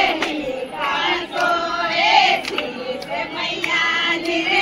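A group of women singing together, with sharp hand claps keeping a steady beat.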